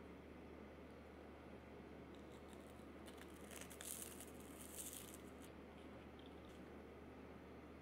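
Faint rustling and small clicks, like something being handled, from about two and a half to five and a half seconds in, over a steady low hum.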